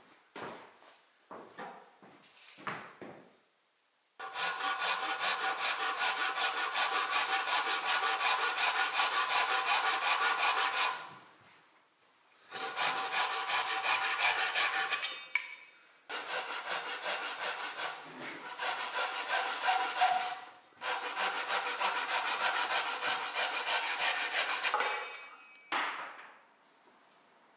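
Thin-bladed hand saw cutting off the protruding ends of a stool's round wooden stretchers flush with the legs, in four runs of quick, even strokes with short pauses between them. A few light wooden knocks come in the first few seconds.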